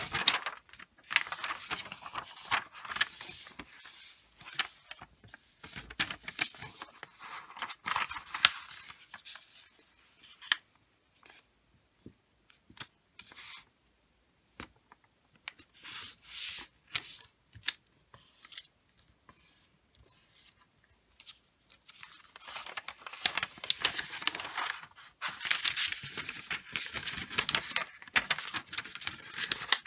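A sheet of wrapping paper handled and folded in half by hand: crisp rustling and crinkling of the paper in two long busy stretches, with sparse quieter paper sounds between them.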